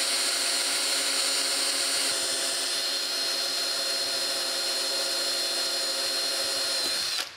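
Cordless drill running steadily with a small 3/32-inch twist bit, drilling through the planer's cast-iron way; a steady motor whine. It stops abruptly near the end, with a brief drop in pitch, as the bit snaps on breaking through.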